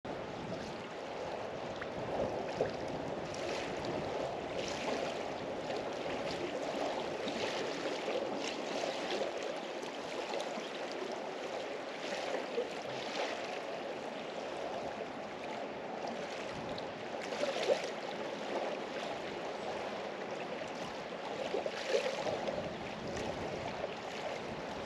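Water lapping and splashing: a steady watery rush, with brighter splashes at irregular moments every few seconds.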